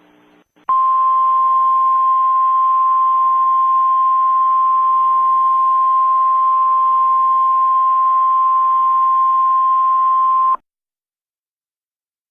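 NOAA Weather Radio 1050 Hz warning alarm tone over radio hiss: one steady, loud, high tone that starts just under a second in, holds for about ten seconds and cuts off suddenly. It is the alert signal that a weather bulletin is about to follow.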